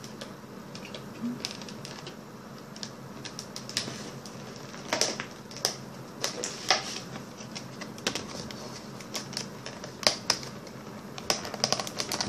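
Plastic packaging being torn open and handled: irregular crinkling with sharp clicks and crackles, coming in quick clusters.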